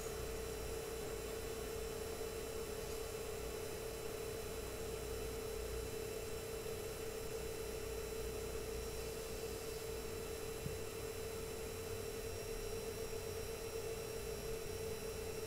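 Dell PowerEdge R210 II 1U rack server's cooling fans running steadily at their settled speed during the power-on self-test: an even hum with one clear, unchanging tone. This is about as quiet as the server gets.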